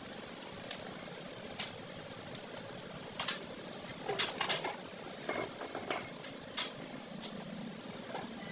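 Scattered sharp metallic clicks and clinks of tools and steel parts being handled during steering rack repair work, over a steady low hum.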